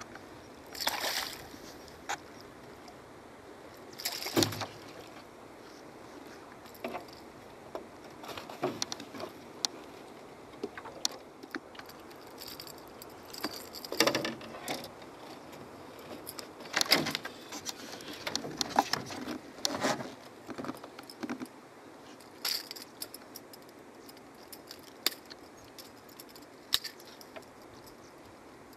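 A payara (cachorra) splashing at the surface as it is landed, then irregular knocks, splashes and metallic clinks of the lure's treble hooks and pliers as the fish is handled.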